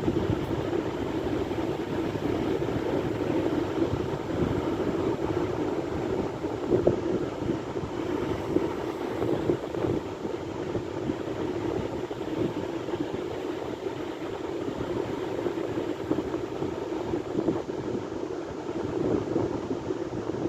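Sea surf: a steady rushing of waves that swells and eases a little without a break.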